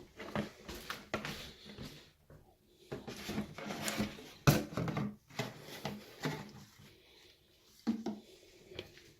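Footsteps and handling knocks of someone walking through a house, irregular, with a sharp knock about four and a half seconds in.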